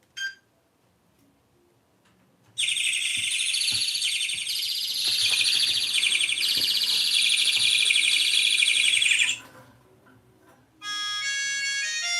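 Old mobile phone ringtone: after a short beep at the very start, a loud, high electronic tone warbling very fast and shifting in pitch sounds for about seven seconds, stopping abruptly. Near the end a different ringtone begins, a melody of separate electronic notes.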